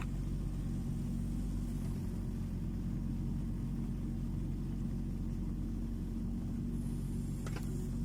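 Kubota U20 mini excavator's diesel engine running steadily at an even pitch.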